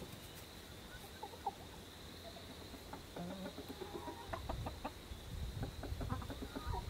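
A small flock of chickens clucking quietly as they come out to forage: a couple of calls about a second in, then frequent short clucks from about three seconds on. A low rumble sits underneath in the second half.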